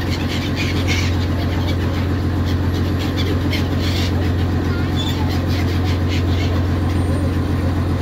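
Steady low drone of a boat's engine, with short high calls of gulls flying close around it.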